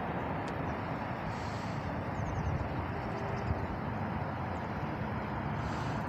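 Steady low rumbling noise with a hiss. About two seconds in come a few faint high chirps.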